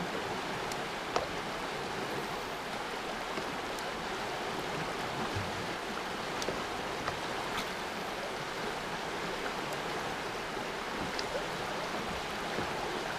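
Shallow river current rushing steadily over riffles and rocks, with a few faint ticks scattered through it.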